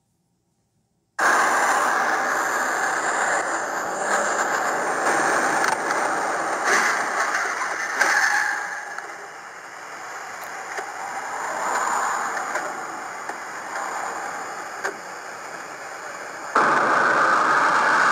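Dashcam recordings of car road and engine noise, heard from inside the cabin, with a few sharp knocks. The sound cuts in about a second in and steps up abruptly near the end.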